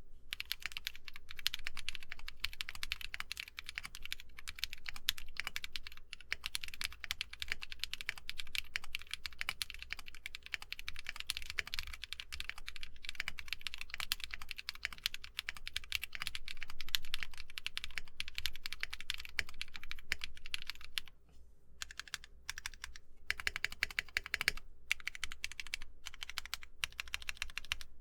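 Typing on a TKC Portico mechanical keyboard with Glorious Panda tactile switches lubed with Krytox 205g0 and fitted with switch films, and IFK Amalfi keycaps: a fast, continuous run of keystroke clacks. About 21 seconds in there is a brief pause, and the typing then goes on with the keystrokes more spaced out.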